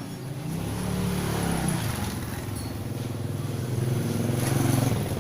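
A motor vehicle engine running, its pitch rising and falling as it swells about a second in, then again near the end before dropping away.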